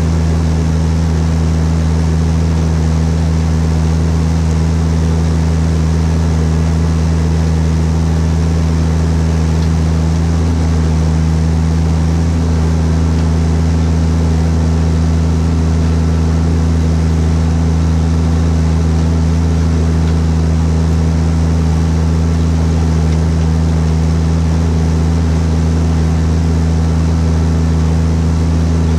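Fendt 820 Vario tractor's Deutz six-cylinder diesel engine running steadily at an unchanging speed, with a constant deep hum.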